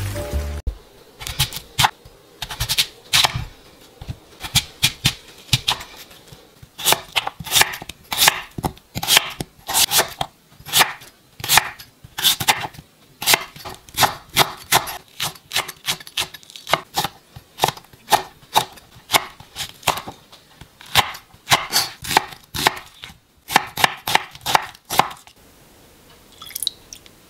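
Kitchen knife chopping vegetables on a wooden cutting board: sharp blade-on-board strokes in steady runs of about two or three a second, which stop near the end.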